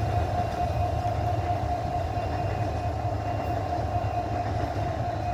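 Long Babaranjang coal train running past, its wagons giving a steady low rumble with a steady ringing tone above it.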